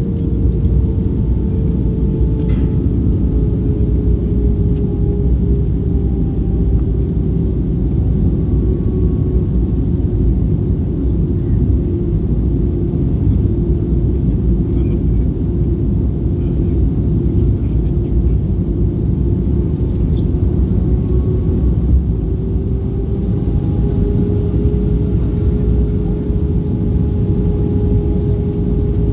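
Airbus A320-214 cabin noise in flight: a steady, loud low rumble of airflow and its CFM56 engines, with a steady engine tone that slowly drops a little in pitch and then rises again in the last third.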